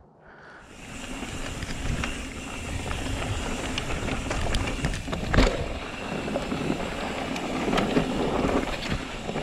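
Mountain bike running down a dusty dirt singletrack: steady rush of wind on the microphone and tyres on loose dirt, with frequent short rattles and knocks from the bike, and one sharp knock about five seconds in. The noise builds up from near silence in the first half second.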